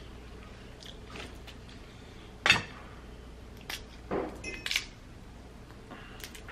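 Boiled crawfish being peeled by hand: a few sharp cracks and crunches of the shell, the loudest about two and a half seconds in and more around four to five seconds in.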